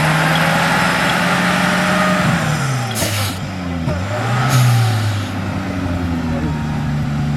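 Off-road 4x4's engine running hard under load, its pitch dropping about two and a half seconds in and rising again. Two short bursts of hissing noise come about three seconds in and again a second and a half later.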